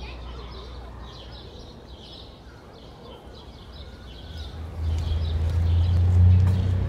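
Outdoor park ambience of small birds chirping over a faint murmur of voices. About two-thirds of the way through, a loud low steady hum comes in and overtakes everything else.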